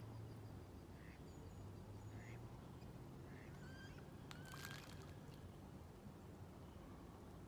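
Faint pond ambience: soft waterfowl calls, most likely ducks, repeating about once a second, with a brief sharper call about four and a half seconds in, over a low steady hum.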